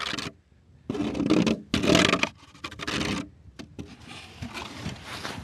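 Snow shovel scraping and chopping at packed snow and ice, three loud strokes starting about a second in, then quieter scraping.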